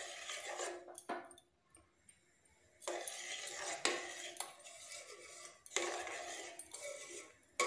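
Metal spoon stirring and scraping around a stainless steel pot of milk being boiled down and thickened, with small clinks against the pot. It comes in three spells, with a near-silent gap about two seconds in.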